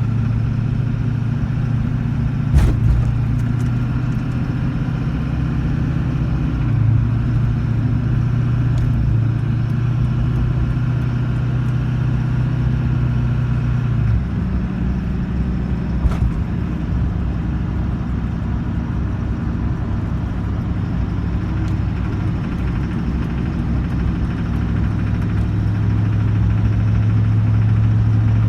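Car engine running steadily, its note shifting about halfway, with a few sharp knocks standing out from it. The owner does not know the cause of the knock.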